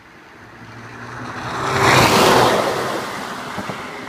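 Audi A5 2.0 TFSI turbocharged four-cylinder driving fast past the camera on a wet road. It swells to its loudest about two seconds in, with engine and tyre hiss on the wet surface, then fades as it pulls away.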